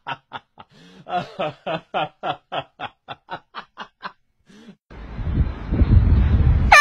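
Rhythmic laughter, a long run of short 'ha' pulses about four a second. About five seconds in it gives way to a low rumble of wind and street noise, and at the very end the loud blast of a handheld air horn begins.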